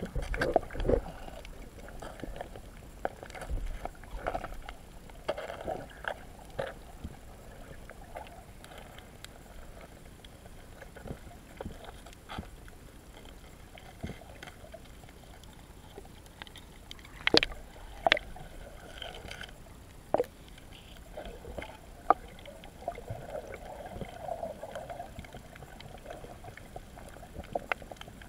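Muffled underwater sound picked up by a camera submerged over a coral reef: water sloshing and gurgling, with scattered sharp clicks and knocks. The loudest knocks come about two-thirds of the way through.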